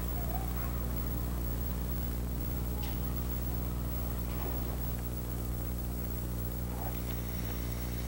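Steady electrical mains hum with a stack of evenly spaced overtones on the soundtrack of a 1980s videotape, with a few faint, brief sounds above it.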